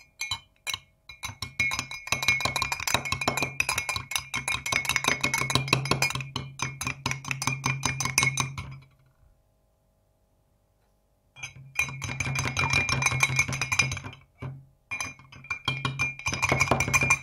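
Spoon beating a raw egg and honey in a cut-glass tumbler: fast, continuous clinking and rattling of the spoon against the glass. It stops for about two seconds midway, then starts again with a brief break near the end.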